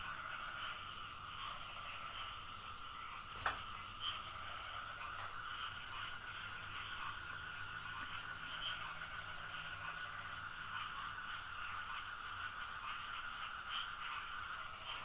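Night-time chorus of insects and frogs: a steady high-pitched chirping pulses about three to four times a second over a continuous buzzing trill. A single sharp click sounds about three and a half seconds in.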